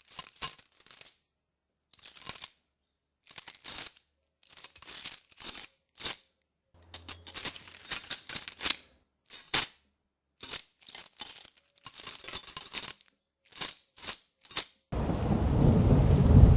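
Irregular bursts of small clinking and rattling, like small hard objects being handled or dropped. Near the end a loud, steady buzzing noise starts abruptly.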